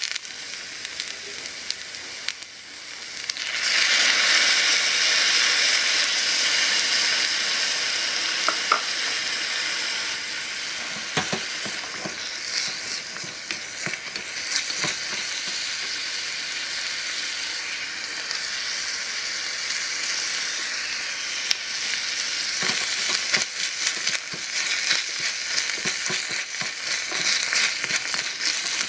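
Chicken pieces frying in a tiny stainless-steel saucepan over a small gas flame, sizzling steadily. The sizzle swells sharply about four seconds in and then slowly eases. A wooden spatula stirs and scrapes the pan, with scattered light taps and clicks.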